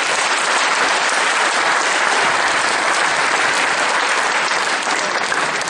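A congregation clapping together in steady applause.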